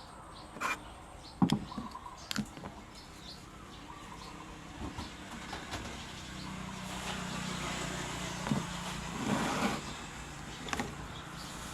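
A few sharp knocks and clatter, then the hum of a passing motor vehicle that swells over several seconds.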